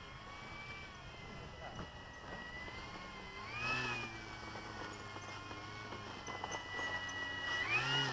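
A dog whining: a high, wavering whine throughout, with louder rising-and-falling cries about four seconds in and again near the end.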